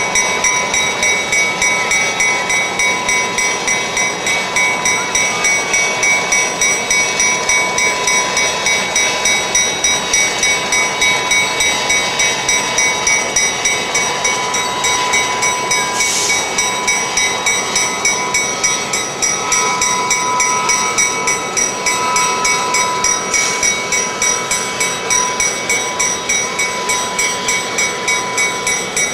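Diesel train running past with a steady mechanical whine and a regular pulsing beat about three times a second.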